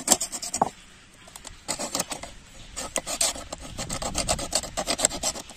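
A hand-held fish scraper rasping over the skin of pomfret pieces in quick repeated strokes, with a pause of about a second near the start.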